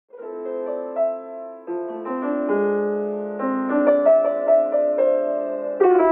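Background piano music that starts abruptly, with held chords and a melody changing every second or so and a louder phrase coming in near the end.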